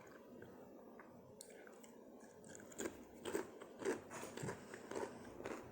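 A person chewing food close to the microphone. It starts quiet, then about halfway in come a run of short crunchy bites and mouth sounds.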